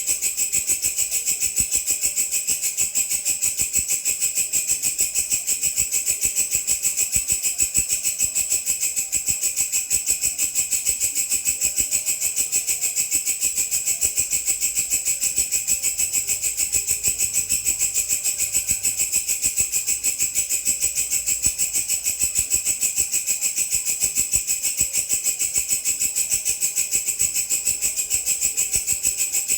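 A grasshopper-type insect (belalang) singing: a continuous, high-pitched trill of rapid, even pulses with no pause.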